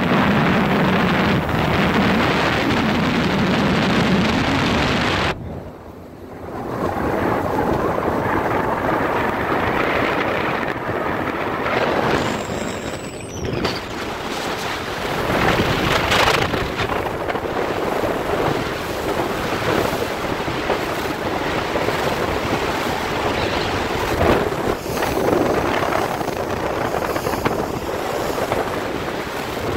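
A Sea Ray 185 Sport runabout under way, its 4.3-litre V6 sterndrive engine running under a steady rush of wind on the microphone and water along the hull. The noise drops off briefly about five seconds in, then comes back.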